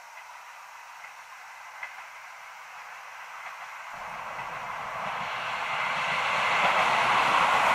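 Electric commuter train approaching on the Nagano Electric Railway line, the noise of its wheels on the rails and its running gear growing steadily louder through the second half. Before that there is only a faint outdoor hiss.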